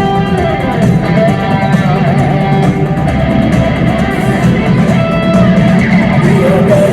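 Rock band playing an instrumental break live: an electric guitar melody over strummed guitar, bass and drums.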